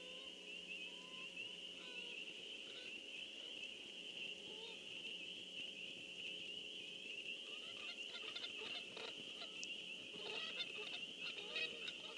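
A bird's short calls, repeated several times in the second half, over a steady high-pitched trilling chorus.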